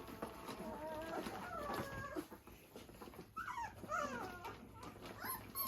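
Two-and-a-half-week-old Rhodesian Ridgeback puppies whimpering and squeaking with short, thin cries that rise and fall, a cluster of them about three and a half seconds in.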